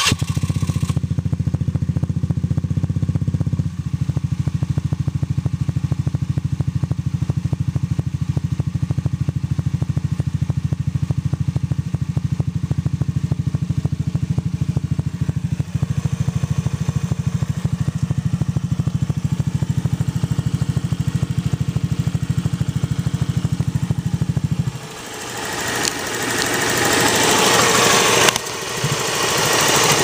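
Honda Zoomer-X scooter's single-cylinder engine idling with a fast, steady clicking from the valve train: loose valve tappets, the sign that the valve clearance needs adjusting. Near the end the idle note drops away and a louder rushing sound rises in its place.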